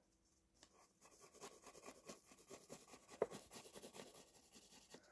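Faint pencil strokes scratching on paper, many quick short strokes starting about a second in, with one sharper tap a little past the middle.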